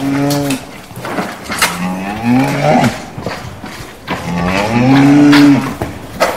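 Cattle mooing in a stable: three moos, the longest and loudest about four to six seconds in, with sharp knocks between them.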